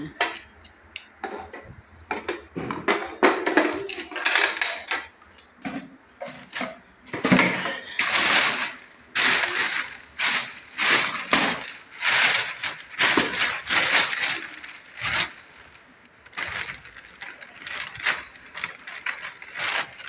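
Plastic bags rustling and crinkling in quick irregular bursts as they are rummaged through by hand.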